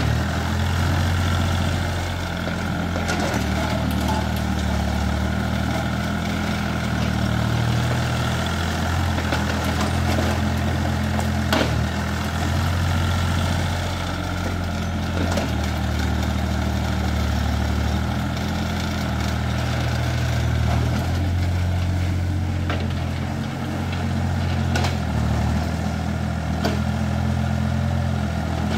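Diesel engine of a heavy earthmoving machine running steadily under working load, its level dipping briefly a few times, with a few sharp knocks scattered through.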